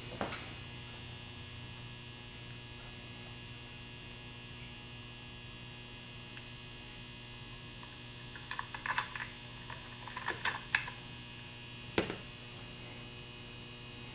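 Steady electrical hum, with small clicks and taps in two short clusters and one sharper click near the end as the plastic brush holder is pushed into place in a Ford 1G alternator's rear housing.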